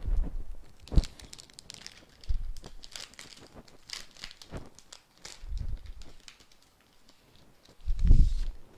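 Sheet material being taken out of its packaging, rustling and crinkling in scattered short bursts, with several dull low bumps of handling, the loudest near the end.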